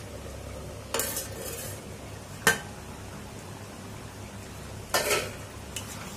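Steel lid and flat steel spatula clanking and scraping against a steel kadai as the lid comes off and the mutton curry is stirred. There are three sharp metal clanks, the loudest about two and a half seconds in. The curry sizzles softly on the gas flame underneath.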